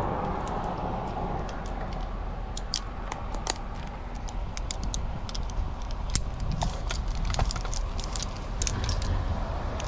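Metal climbing hardware, carabiners and a Unicender rope-walking device, clicking and clinking irregularly as it is handled and clipped on the rope, over a low steady rumble.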